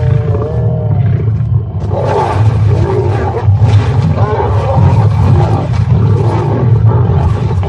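Lions growling and snarling as they attack an injured lioness, with a continuous deep growl throughout. A wavering, moaning cry comes in the first second, and harsher snarling follows from about two seconds in.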